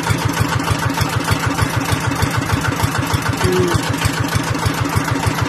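Small engine driving an irrigation water pump, running steadily with a fast, even beat.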